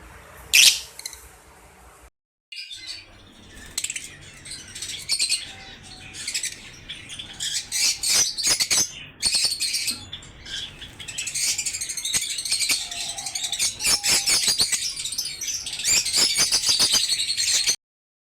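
A cage full of pet birds chattering, many overlapping chirps at once. A single loud call comes just after the start, and the chirping cuts off suddenly near the end.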